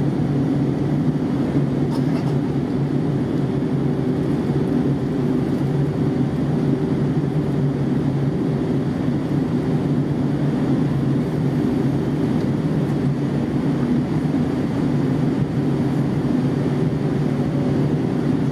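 Airbus A320 airliner in flight: a steady drone of engines and rushing air, with a few steady low hums under it and no rise or fall.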